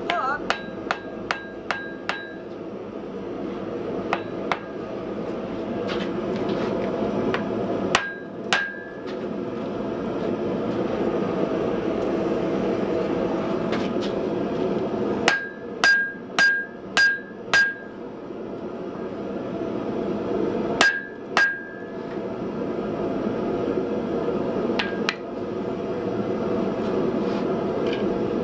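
Blacksmith's hammer striking hot iron on an anvil in short bursts of blows, each with a brief metallic ring, as the anvil's body pieces are forge-welded together. A steady roar runs underneath.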